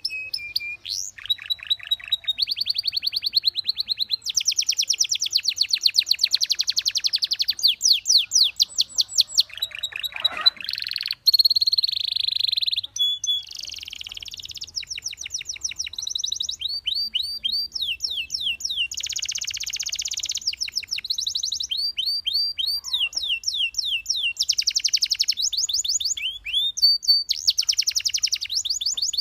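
Belgian canary singing a long, fast song of high trills: rapid runs of repeated notes that change to a new phrase every second or two, with only brief breaks.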